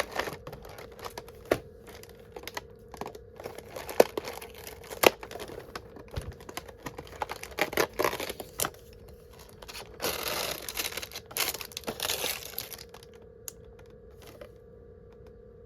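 Cardboard advent calendar packaging being torn and crinkled open by hand, with scattered small clicks and taps. A longer run of rustling and tearing comes about ten to twelve seconds in, then it goes quieter near the end.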